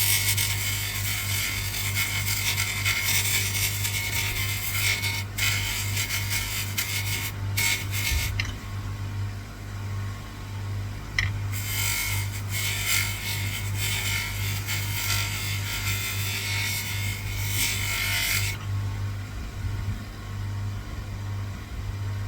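Bench polisher running with a steady hum while a shell fuze is pressed against the polishing wheel, giving a rushing hiss for about eight seconds; the piece comes off the wheel, then goes back on from about twelve to eighteen seconds, with only the motor hum in between and after.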